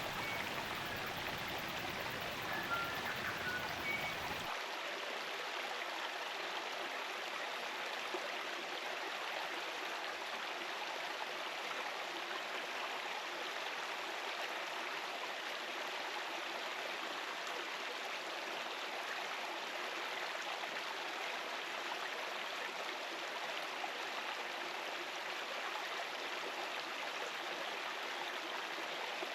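Steady rush of running water in a spring-fed stream, with a few short bird chirps in the first few seconds. About four seconds in, the deeper part of the sound drops away abruptly.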